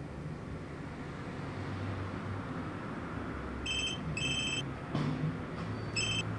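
A mobile phone ringing with a high electronic ringtone: three short rings, the first about three and a half seconds in, over a low steady background hum.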